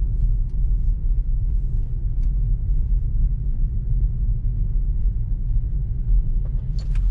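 Steady low road rumble inside a Tesla electric car's cabin as it rolls along slowly.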